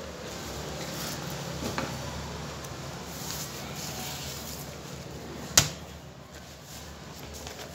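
Sheets of paper being handled on a wooden desk, with light rustling and one sharp knock just over halfway through.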